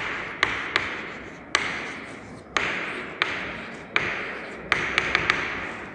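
Chalk writing on a blackboard: each stroke starts with a sharp tap as the chalk meets the board, followed by a scratchy hiss as it drags. About ten strokes, at an uneven pace.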